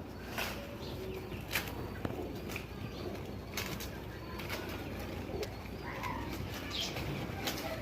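Pigeons cooing, with wing flaps and scattered sharp clicks and scuffs among them.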